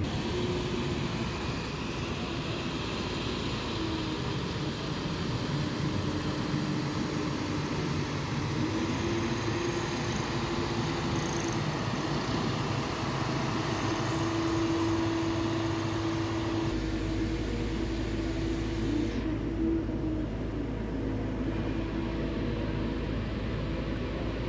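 Heavy vehicles, among them a self-loading concrete mixer truck and a JCB telehandler, driving slowly past one after another with their engines running, a steady hum over street noise.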